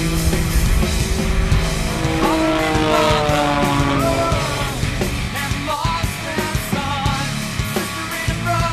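Rock music with guitar and a steady drum beat, the guitar holding and bending notes.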